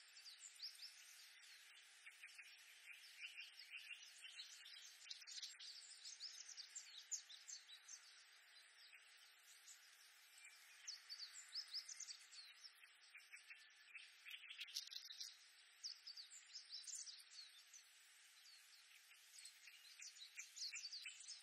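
Oriental reed warblers singing, rapid chattering phrases of quick repeated notes that come and go in bouts, over a faint steady background hiss.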